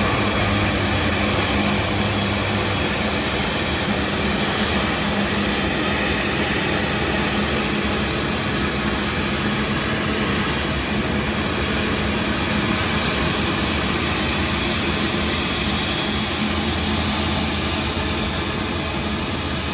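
Airbus A350-900's Rolls-Royce Trent XWB turbofan engines running steadily at taxi power as the airliner rolls past close by. A low hum fades out about three seconds in.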